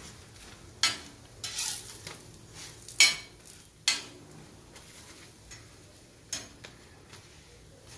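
Slotted metal spatula scraping and knocking on a hot iron griddle as a chapati is folded and pressed, with a faint sizzle of the oiled flatbread frying underneath. Several scrapes and knocks come in the first four seconds, the loudest about three seconds in, and one more about six seconds in.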